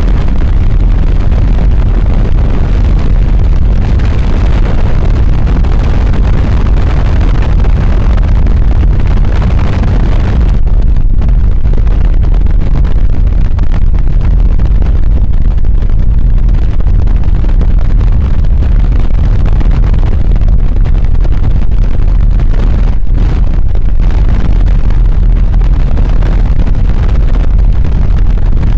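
Helicopter in flight with its doors off: loud, steady rotor and engine noise mixed with wind rushing over the microphone. About ten seconds in, the higher hiss drops away and the low rumble carries on.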